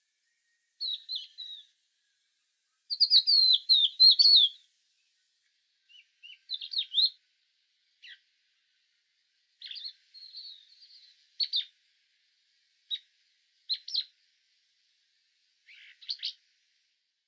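Small songbirds chirping in short, separate high-pitched phrases with pauses between, the loudest run of quick chirps about three to four seconds in, then scattered single calls.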